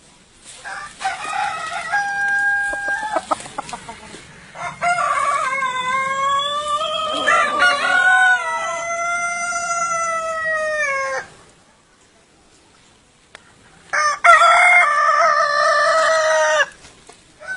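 A rooster crowing: short calls at the start, then one very long crow of about six seconds that sags in pitch at its end, and a second shorter crow near the end.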